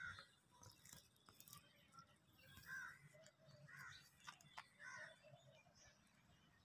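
Near silence: faint outdoor ambience with a few soft, brief sounds scattered through it.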